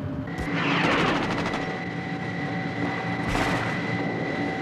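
Armoured vehicle's engine running steadily under a high whine, with a rapid burst of gunfire about a second in and another sharp shot a little past three seconds in.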